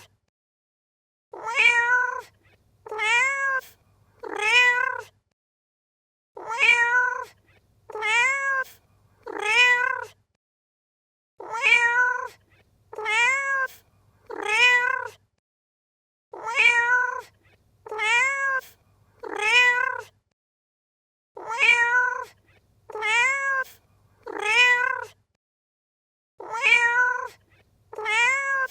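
Domestic cat meowing in sets of three, each meow rising and then falling in pitch. The same three-meow phrase repeats about every five seconds as a loop.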